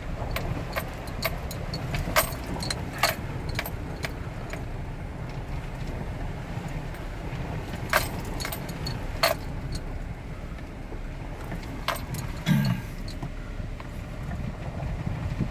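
A vehicle driving slowly over a rough, wet road, heard from inside the cab: a steady low rumble with frequent sharp clicks and rattles as it jolts over bumps, and a heavier thump near the end.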